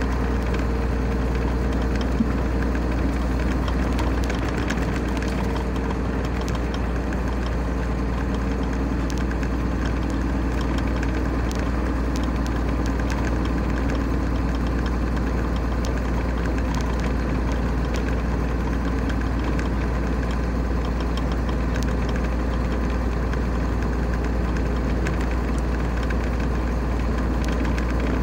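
Steady engine and road noise inside a vehicle cruising on a motorway: a constant low rumble with an even engine hum over it.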